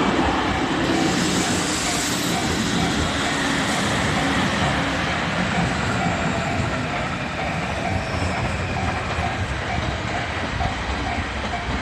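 485-series electric multiple unit passing over a level crossing, wheels clattering on the rails, while the crossing's warning bell rings over and over.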